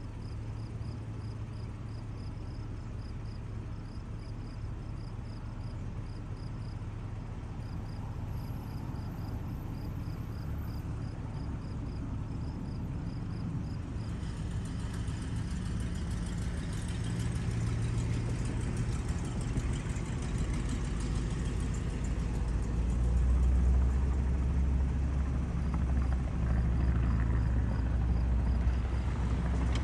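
Vehicle engines running: a steady low hum that grows steadily louder over the second half, as a car moves close by and a crop-spraying helicopter works in the distance.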